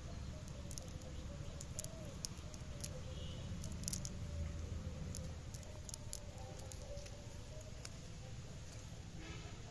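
Nylon cast net being handled and small fish picked out of its mesh: scattered light clicks and soft pats, irregular and a few per second, over a steady low rumble.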